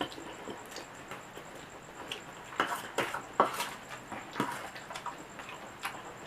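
A person eating instant fried noodles (Indomie mie goreng) close to the microphone: irregular wet chewing clicks and mouth smacks, loudest a little under halfway through.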